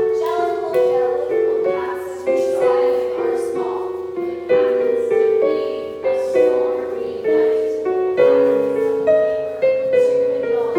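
Piano playing chords, a new chord struck about once a second and each dying away before the next.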